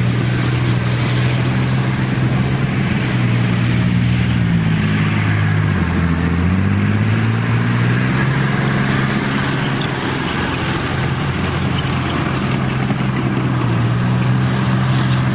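Diesel engine of a BVP (BMP-type) tracked infantry fighting vehicle running as the vehicle drives, a steady low drone. Its pitch sags about six seconds in and then climbs back up.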